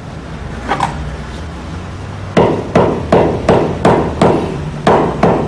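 A hammer striking a leather-covered sliotar (hurling ball) on a wooden block. The sharp, rhythmic blows start a little over two seconds in, about three a second. Hammering the ball rounds its joints and sets the stitches of the leather casing.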